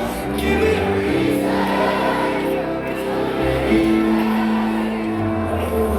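Loud live rock band music with sung vocals, held notes over heavy bass.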